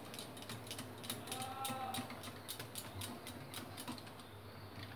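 Metal wire whisk beating thick besan batter in a ceramic bowl, its wires clicking against the bowl in quick irregular ticks that thin out after about three and a half seconds.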